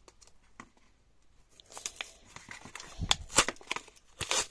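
Packaging being crinkled and torn open as a small toy lamp is unboxed: a run of irregular crackles and sharp snaps starting about two seconds in.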